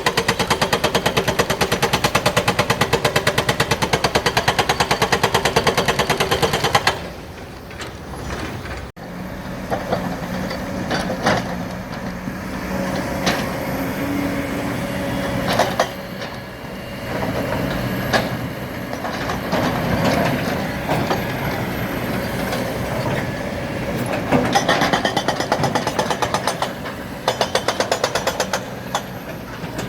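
Excavator-mounted hydraulic rock breaker hammering rock in a fast, even run of blows, which stops about seven seconds in. The excavator's diesel engine and hydraulics then work under load, with scattered knocks and clanks of rock. The rapid hammering starts again near the end.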